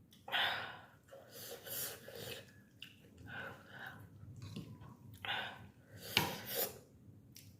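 Close-up sniffing and slurping while eating hot, spicy thukpa noodle soup: a string of short, sharp sniffs and slurps, the loudest near the start and twice more about five to six seconds in. The sniffing comes from a runny nose brought on by the hot chilli soup.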